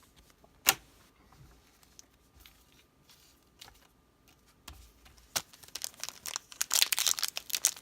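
Foil Pokémon booster pack wrappers crinkling as they are handled, starting about five seconds in and growing louder near the end. A single sharp click comes about a second in, with a few light taps after it.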